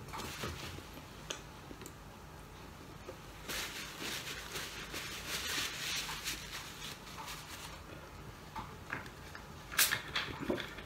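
Paper napkin rustling for a few seconds while it is unfolded and used, followed by a few sharp light clicks near the end.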